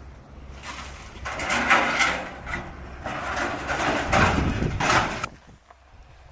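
Burned corrugated metal roofing sheets scraping and rattling as they are lifted and shifted through debris, in several noisy bursts that stop abruptly about five seconds in.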